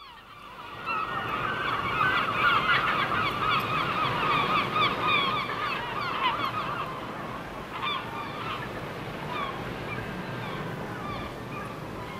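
A flock of birds calling, many short overlapping calls at once, thinning out after about seven seconds, over a steady background rush.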